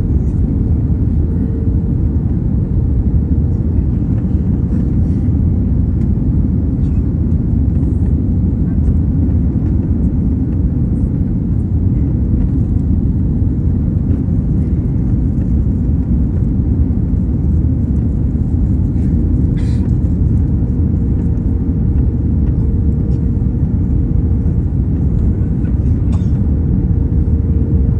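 Steady low rumble of cabin noise inside a jet airliner on final approach with flaps extended, from the engines and the airflow over the wing, with a steady hum tone running through it.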